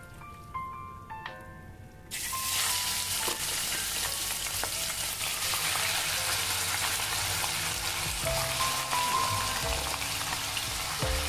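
Raw mutton pieces frying in hot oil in a steel pot, a loud sizzle that starts suddenly about two seconds in as the meat goes in and carries on steadily, over background music.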